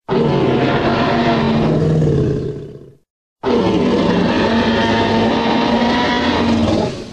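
Jurassic Park-style Tyrannosaurus rex roar sound effect, heard twice. A roar of about three seconds starts abruptly and fades out; after a brief silence a longer roar of about four seconds follows and fades out the same way.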